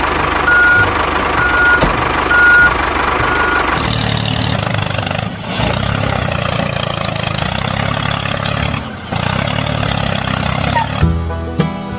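Heavy vehicle's backup alarm beeping about once a second, four times, over a running diesel engine. After that the engine runs on alone with a deeper, steady rumble.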